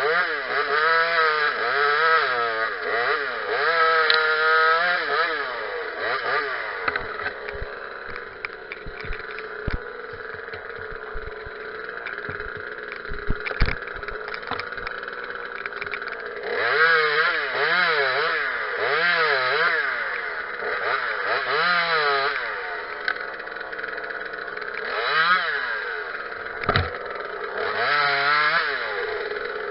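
Small two-stroke Parker top-handle chainsaw being revved up and down again and again, dropping back to a lower, steadier running speed for about ten seconds around the middle, when a few sharp knocks are heard, before the revving starts again.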